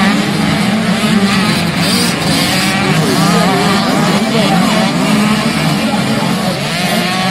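Pack of 85cc two-stroke motocross bikes racing, many engines revving up and down over one another.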